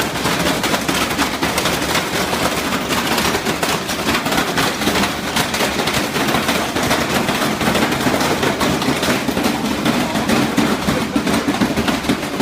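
Washing machine running its own durability test, a rapid, unbroken clatter of knocks and bangs.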